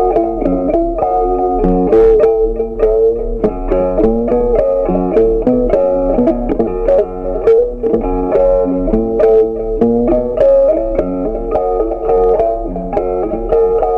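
Background instrumental music, a melody of short plucked notes over a steady accompaniment.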